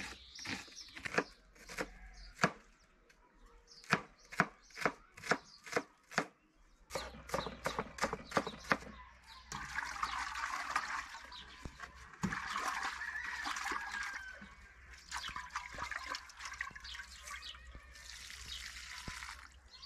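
A run of sharp knocks, a few a second and quickening, gives way about ten seconds in to water pouring and splashing that carries on to the end.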